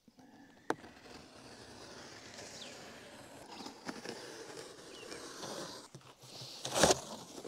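A large cardboard shipping box being opened and handled: a sharp click about a second in, a steady rustle of cardboard and packing, and a short loud scrape near the end.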